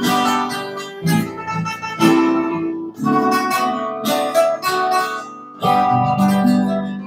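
Acoustic guitars strumming the closing chords of a slow song, about one chord a second, with a final chord about six seconds in left ringing.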